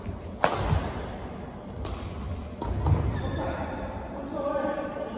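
Badminton racket strikes on a shuttlecock: a sharp crack about half a second in, then lighter hits near two seconds, with thuds of footsteps on the court. After about three seconds a person's voice calls out.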